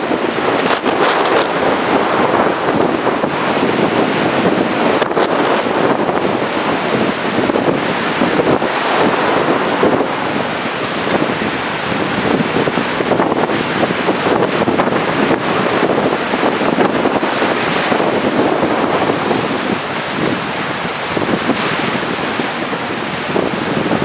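Strong wind, over 10 m/s, buffeting the microphone over breaking surf: a loud, steady rush of wind and waves with no pitched sound in it.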